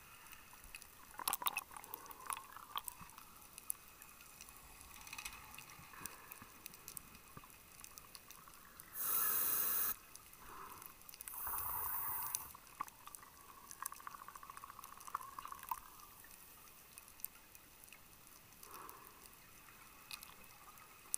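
Scuba regulator breathing heard underwater: bursts of bubbles near the start, a loud hiss lasting about a second about nine seconds in, then another gurgle of bubbles, over faint scattered crackling.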